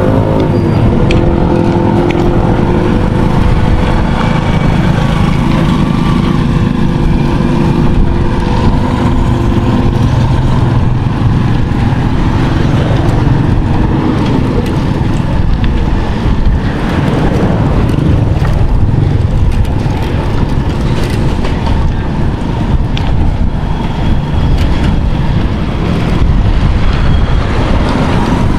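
A motor vehicle's engine running under way, with steady road and wind noise; an engine note heard at the start fades out about ten seconds in.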